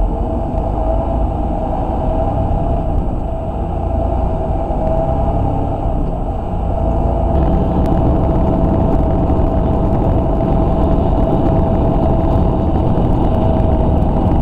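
Steady diesel engine and road rumble heard inside a semi truck's cab, with a steady whine over it. About seven seconds in the sound changes abruptly to a slightly louder, fuller road noise at highway speed.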